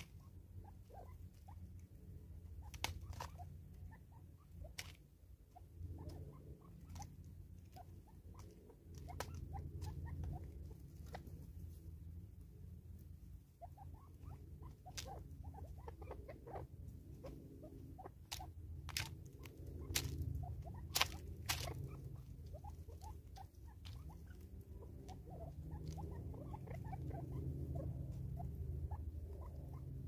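Natal spurfowl pecking seed from a plastic bottle feeder: irregular sharp taps and clicks of beaks striking the plastic and the grain, over a steady low rumble.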